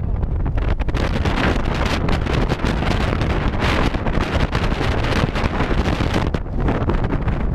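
Wind buffeting the action camera's microphone with a heavy, steady rumble, mixed with hikers' footsteps on snow.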